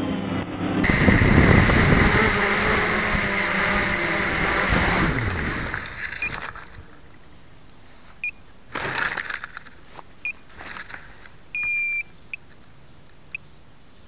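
Octocopter's electric motors and propellers running loud, then winding down in pitch and falling silent about six seconds in as it lands. After that, a series of short electronic beeps follows, one of them longer, about half a second, near twelve seconds.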